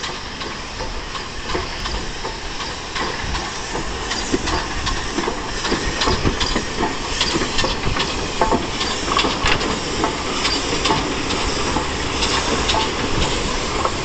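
BR Standard Class 9F 2-10-0 steam locomotive passing slowly at close range, with steam hissing and a run of clicks and clanks from its wheels and motion on the rails. It grows a little louder as it draws near.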